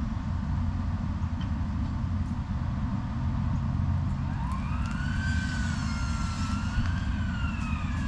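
A siren wailing in the distance over a steady low wind rumble on the microphone. About halfway through, the siren rises in pitch, wavers and then slowly falls.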